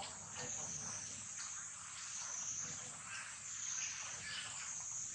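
Outdoor ambience: a steady, high-pitched insect drone with faint scattered chirps over it.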